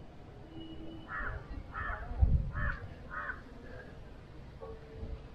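A crow cawing four times in quick succession, harsh calls about two-thirds of a second apart. A low rumble on the microphone about two seconds in is the loudest moment.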